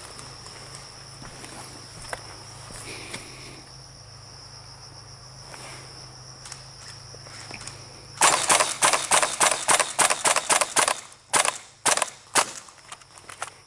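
Airsoft guns firing: a rapid string of sharp pops starts about eight seconds in and lasts a couple of seconds, then a few scattered shots follow. Before the shooting there is only a steady high insect drone.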